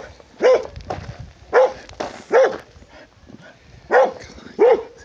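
An animal calling five times in short, loud calls, each rising and then falling in pitch.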